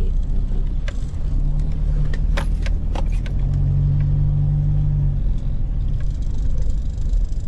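A car engine runs with a steady low rumble, its note growing stronger for a second or two midway, with a few sharp clicks about two to three seconds in.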